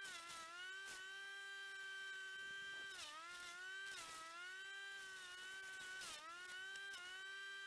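Faint wood chipper running with a steady whine whose pitch dips briefly and recovers every one to three seconds.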